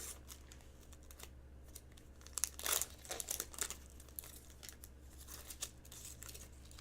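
Trading cards and a pack wrapper being handled: soft, irregular crinkling and rustling, busiest in the middle, over a faint steady low hum.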